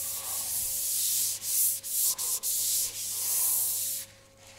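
Hand sanding with 600-grit sandpaper on a car door's dried wet-on-wet primer, a hissing rub in a series of short strokes that stops about four seconds in. This is light de-nibbing: knocking down dust specks caught in the primer before painting.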